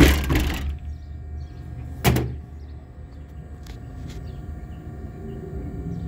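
School bus doors and compartment panels being shut: a loud clattering slam at the start, a second sharp bang about two seconds in, then a couple of light clicks, over a steady low hum.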